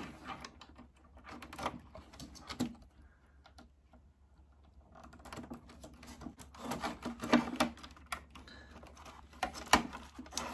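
Plastic wire connectors and wiring being handled and pushed onto a mini split indoor unit's circuit board: irregular small clicks, taps and rustling, sparse in the first half and busier in the second, with one sharp click near the end.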